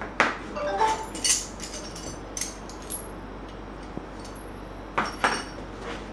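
Steel D-ring shackles and a snatch block clinking and clacking as they are handled and packed into a fabric carry bag. There is a string of sharp metallic clinks, some with a brief ringing, in the first second and a half and again about five seconds in.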